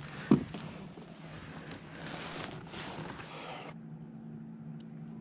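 Handling noise as a bass is laid and held on a plastic measuring board: one sharp knock about a third of a second in, then rustling that cuts off suddenly a little after halfway. A steady low hum runs underneath.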